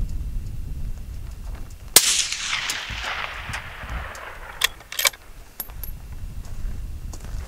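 A single rifle shot from a Ruger American Gen II bolt-action in .223 Remington, about two seconds in; the report rings out and fades over about two seconds. A few sharp clicks follow about three seconds after the shot.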